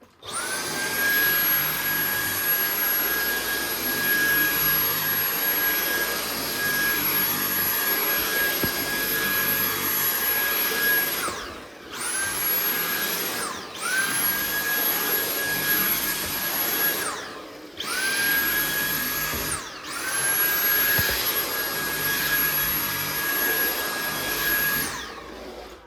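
Dyson cordless vacuum cleaner motor running with a steady high whine. It cuts out and starts up again four times, each restart a quick rising whine. Near the end it winds down as the battery runs flat.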